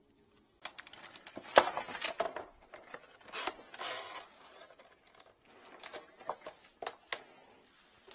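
Irregular clicks, knocks and rustles of a drain inspection camera's cable and case being handled with rubber gloves, starting about half a second in, with the loudest knock about a second and a half in.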